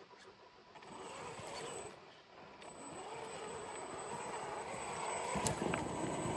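Traxxas X-Maxx RC truck's brushless electric motor whining at low throttle as it crawls over rocks, its pitch wavering with the throttle. It grows louder in the second half, with a sharp click about five seconds in, then cuts off suddenly at the end.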